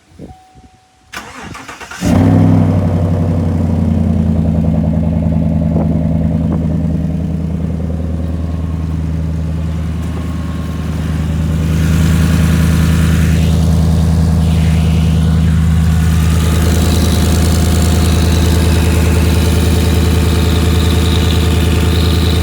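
Chevrolet Silverado pickup engine cold-started through its freshly fitted catalytic converters: a brief crank, then it catches about two seconds in with a flare and settles into a steady fast idle, running a little louder from about twelve seconds in.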